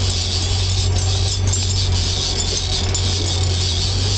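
Fishing boat's engine running steadily, a constant low hum with a steady hiss above it.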